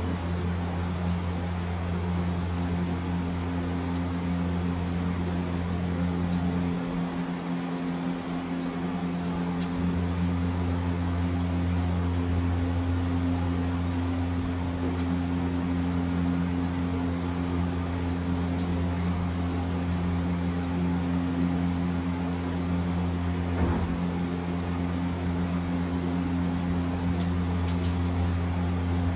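A steady low machine hum with a few faint clicks and rustles of paper being handled. The deepest part of the hum drops away for a few seconds about a third of the way in.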